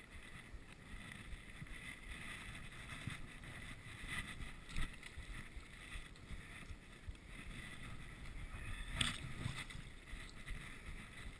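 Footsteps and mountain bikes being walked across a snow-covered log footbridge: irregular soft steps, scrapes and knocks over a low rustling background, with one sharper knock about nine seconds in.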